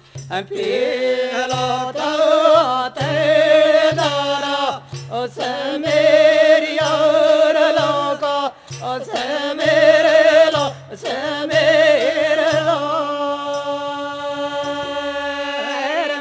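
Devotional folk singing to the goddess Bhavani: male voices sing long, drawn-out, wavering lines over a steady low drum beat.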